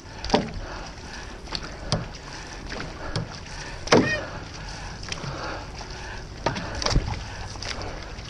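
Outrigger canoe paddles striking and pulling through the water, about one splash or knock a second, over steady wind and water noise.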